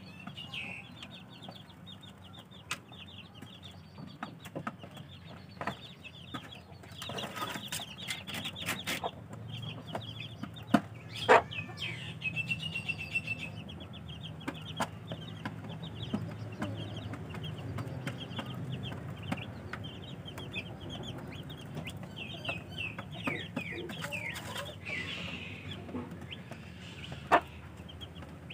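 Young chicks peeping: many short, high-pitched calls repeated in quick runs, with a few sharp taps over a steady low hum.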